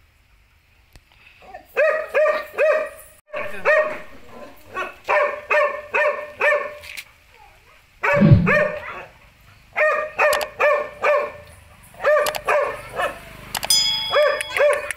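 A dog barking in quick runs of three or four short, high-pitched barks, each dropping in pitch, repeated over and over. A short electronic chime sounds near the end.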